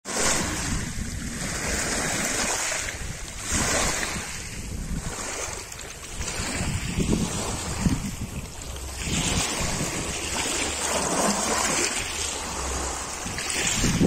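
Small waves washing up over a pebble beach and drawing back, a hiss that swells and fades every few seconds.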